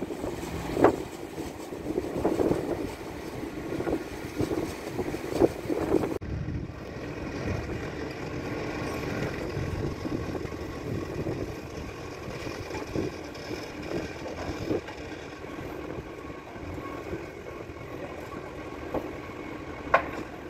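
Wind and water noise with a few sharp knocks, then after a cut, the steady running of heavy diesel machinery: a crawler crane's engine and trucks.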